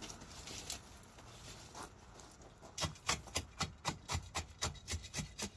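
A hand tool worked back and forth in quick rasping strokes, about four a second, starting about halfway in.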